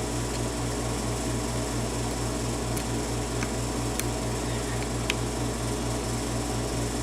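A steady mechanical hum with a fast, even pulse runs throughout, and a few faint, sharp metallic clicks come at scattered moments, from a lock pick working the pins of a Yale pin-tumbler cylinder lock.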